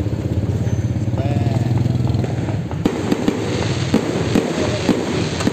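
Fireworks going off: a dense crackle over a low rumble, then sharp separate pops and bangs from about three seconds in.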